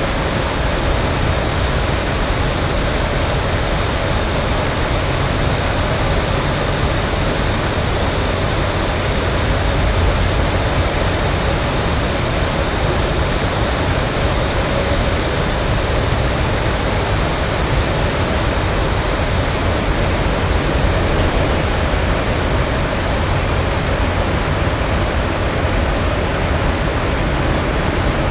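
Steady, loud outdoor roar of traffic, with a high hiss laid over it that drops away near the end.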